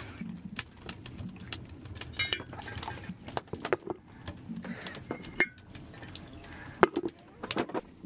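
Metal clinks and dish clatter with water splashing, as hands are washed under a hanging metal washstand spout. There are many small knocks, with two brief ringing clinks.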